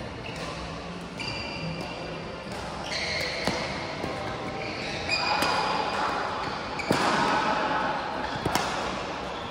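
Badminton doubles rally: court shoes squeak on the floor again and again, and racket strikes on the shuttlecock crack sharply a few times, the clearest about three and a half, seven and eight and a half seconds in.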